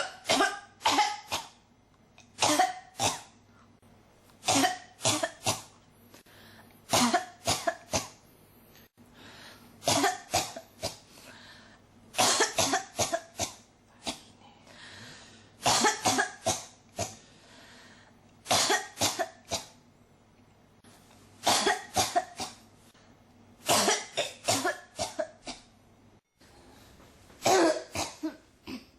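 A person in a coughing fit that won't stop: bouts of two to five coughs in quick succession, coming again every two to three seconds.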